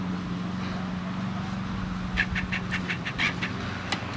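A quick run of about eight clicks and rattles over a second and a half as a dog scrambles into a plastic travel crate in a car's cargo area, then one more click near the end, over a steady low hum.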